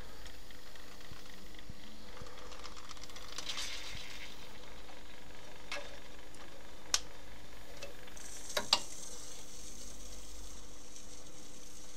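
Steady crackly hiss with a faint hum from the Jupiter 100 jukebox's mechanism, broken by a few sharp clicks in the second half, two in quick succession about nine seconds in.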